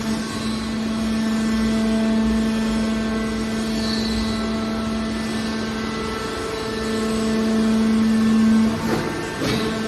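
Hydraulic car baler running with a steady pitched machine hum, and a few sharp metallic knocks near the end.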